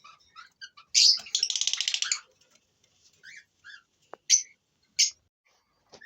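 Small pet birds chirping: short high chirps throughout, a loud rapid chattering trill lasting about a second from about a second in, and two sharp loud chirps near the end.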